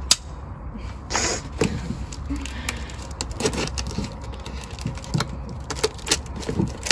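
Folding knife slitting the packing tape and cardboard of a taped parcel: an irregular run of short scratches, clicks and crinkles of tape and cardboard being cut and handled.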